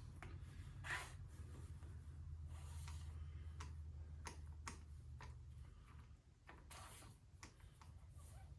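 Faint clicks and a few short rustles of small objects being handled, over a steady low hum.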